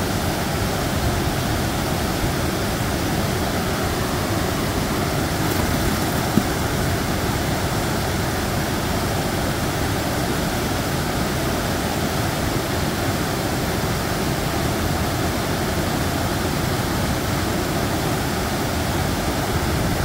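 Water pouring over a low river dam and churning white below it: a steady, even rushing. A single brief tap about six seconds in.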